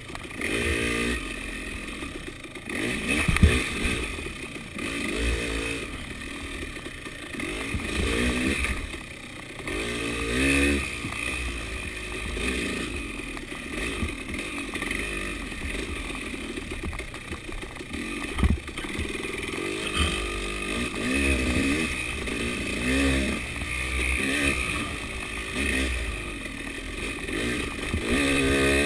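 KTM 300 two-stroke dirt bike engine revving up and down over and over as it is ridden along a rough forest trail, with clatter from the bike and a couple of sharp knocks as it hits roots and bumps.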